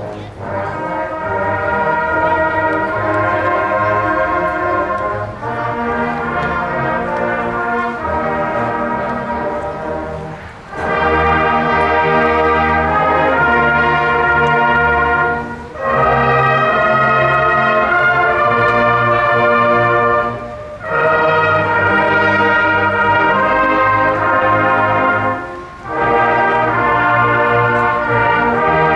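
A large massed brass choir of trumpets, trombones and horns playing sustained chords in slow phrases, with a short break between phrases about every five seconds.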